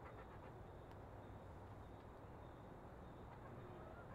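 Near silence: quiet outdoor ambience with a faint steady high tone and a few soft sounds from hens in a coop.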